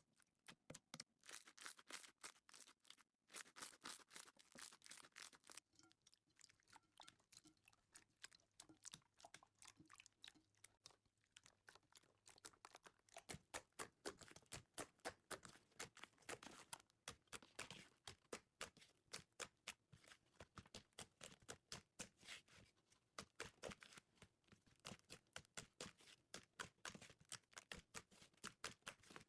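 Slime being squished and pressed by hand: a quiet, fast run of small sticky clicks and crackling pops, busier and louder in the second half.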